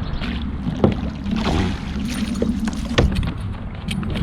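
Water splashing around a fishing kayak, with a few sharp knocks on the hull.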